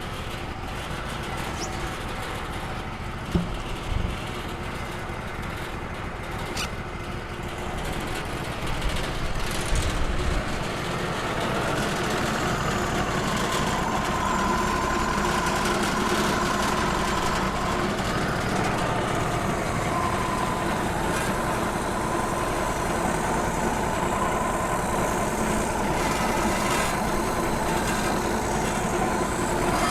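Wood-Mizer LT35 portable band sawmill running steadily, with a couple of knocks about three and four seconds in. From about eleven seconds in it grows louder and a steady high whine joins it.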